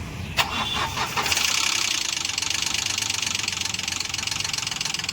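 Renault Kwid's three-cylinder petrol engine starting and running with a fast, steady metallic clatter, after a sharp click about half a second in. The mechanic traces the noise to wrong intake cam timing letting the valves touch the pistons.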